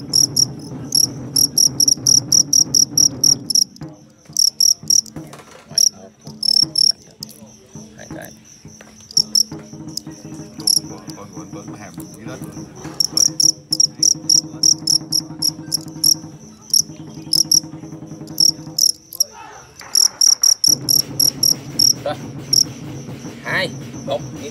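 Male fighting crickets chirping in quick, stuttering trains of pulses that stop and start, the aggressive song of crickets squaring off in a fight. A steady low hum runs underneath.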